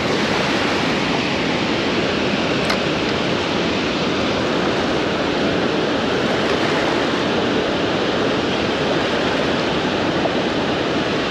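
Steady rush of water pouring through a dam spillway, with one short click nearly three seconds in.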